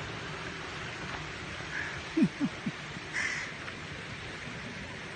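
Crows cawing outdoors: harsh calls about two seconds in and again about three seconds in, with three quick low falling calls between them that are the loudest sounds, over a steady background hiss.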